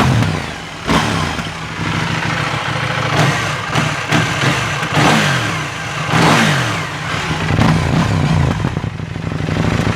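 KTM 790 Duke's parallel-twin engine running through its stock exhaust, the engine note rising and falling over and over as the throttle is worked.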